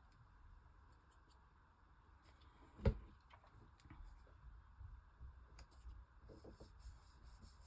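Quiet handling of small paper pieces on a craft table, with faint rustles and small clicks and one sharp tap about three seconds in.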